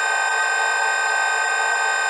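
Synthetic 'Garyaev matrix' sound program: a dense, steady drone of many sustained tones stacked from the middle up into the high range, over a faint hiss, unchanging throughout.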